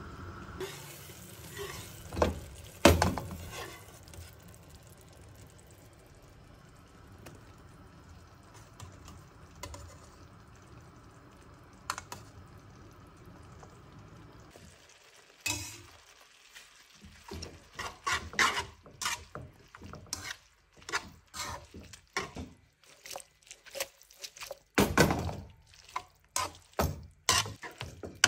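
Scallions simmering in a little liquid in a nonstick wok, with a few sharp knocks early on. From about halfway there is a rapid run of clicks and scrapes as a metal utensil stirs curly noodles through the scallions against the pan.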